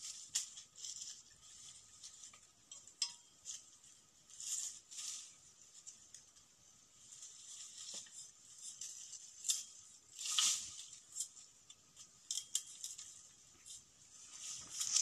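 Short rustles and light clicks of dry pan-aw stalks and brush being cut and handled with a bolo knife, coming in irregular bursts.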